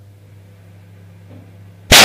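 Microwave oven humming steadily as it runs, then near the end a car airbag inside it deploys with a sudden, very loud bang that blows the microwave apart.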